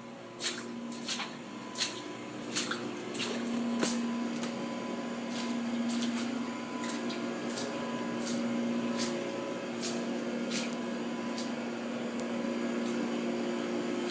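A motor-driven machine running steadily with a humming drone, with irregular sharp clicks or ticks over it, more frequent in the first half.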